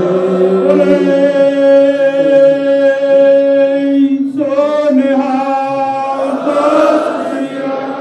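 A congregation chanting together in long, held devotional notes, one note sustained for about three seconds before the voices glide to a new pitch a little over four seconds in.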